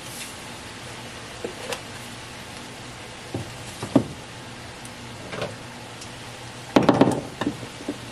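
A few light knocks and clatters of spice containers being picked up and set down by hand, with the loudest run of clatter about seven seconds in, over a low steady hum.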